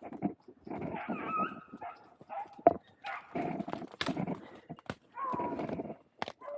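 Beagles baying in repeated bursts while running a rabbit on its scent, with a few sharp clicks or snaps among the calls.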